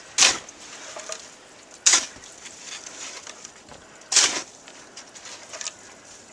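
Snow shovel strokes: three short scraping scoops about two seconds apart, with a fourth starting right at the end.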